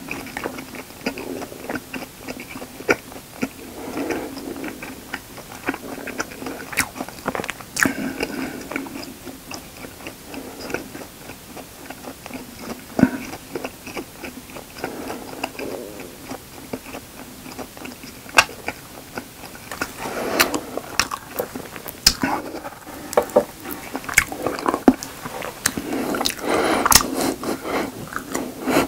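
Close-miked chewing of a mouthful of raw honeycomb: wet, sticky mouth sounds with frequent small clicks and smacks, growing busier over the last several seconds.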